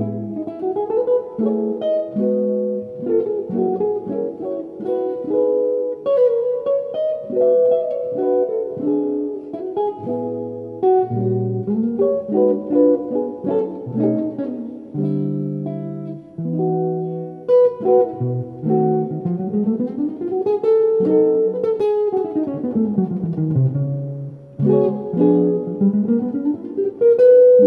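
Solo archtop jazz guitar played through a small amplifier in chord-melody style: chords under a picked melody, with quick runs of notes sweeping up and then down near the end.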